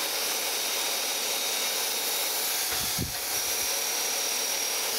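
Surface grinder taking a light finishing pass on a straight edge: a steady hiss of the wheel grinding metal under spray-mist coolant. A low thump about three seconds in.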